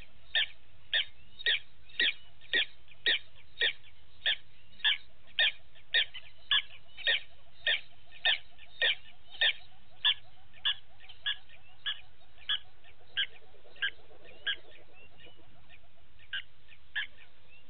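Short, sharp animal calls repeated in a steady rhythm about twice a second. They weaken and slow after about ten seconds and stop, with two last calls near the end.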